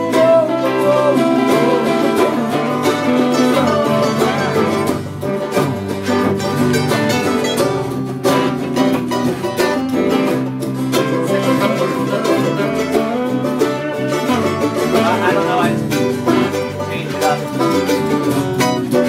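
A band jamming live: guitar and other plucked string instruments playing continuously.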